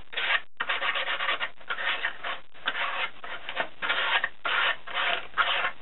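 Hand-sanding the rough cut edges of a cardboard letter with a small piece of fine P180 sandpaper: repeated back-and-forth rubbing strokes with short breaks between them.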